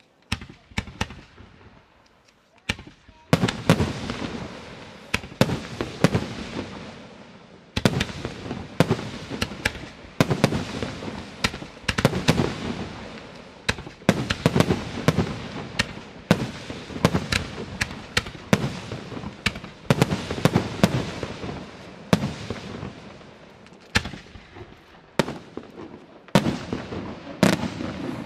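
Aerial fireworks shells bursting in the sky. After a few scattered sharp reports in the first seconds comes a dense barrage of overlapping bangs and crackling, broken only by a couple of brief lulls.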